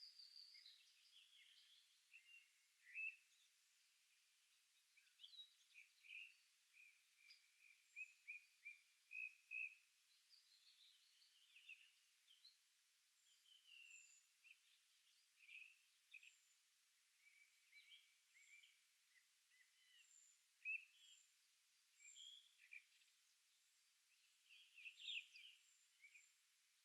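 Faint birdsong of a morning forest: several small birds chirping and trilling in short phrases, overlapping, with a quick run of repeated notes about a third of the way in and faint high thin notes recurring through the second half.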